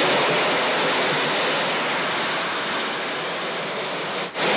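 Steady rushing noise of a model train rolling along its track, with crickets chirping faintly in a regular rhythm near the end.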